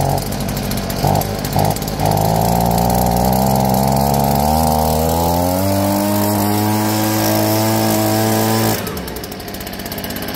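Stihl BG50 leaf blower's small two-stroke engine idling just after a cold start, left running so fuel can fill the carburetor's circuits. Its pitch climbs in steps over a couple of seconds, then holds steady. Near the end the engine note drops away to a quieter, even rushing sound.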